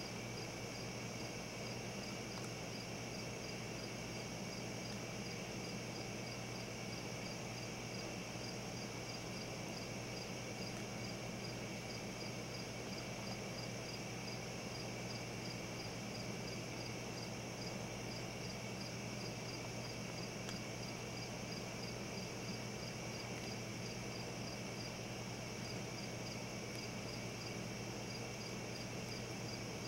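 Crickets chirping in an even, regular rhythm over a steady low hum and hiss.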